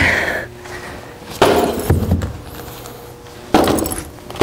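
Cracked window glass bonded to 3M security film crunching and rattling under two blows, about a second and a half in and again past three and a half seconds; the film holds the broken glass in the frame.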